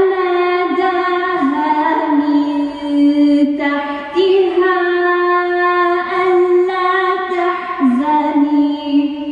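A woman's solo voice chanting a Quran recitation in melodic style, with long held notes that slide between pitches and short breaks between phrases. The cathedral's echo rings on briefly after she stops near the end.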